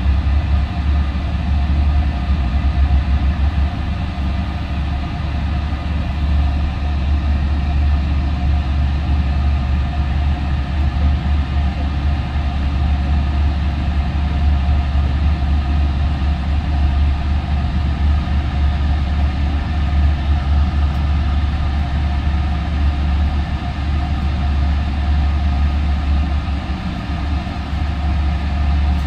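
Steady low drone of a Trinity Railway Express commuter train heard from inside the coach as it moves slowly, with a few steady humming tones above it and no wheel clicks.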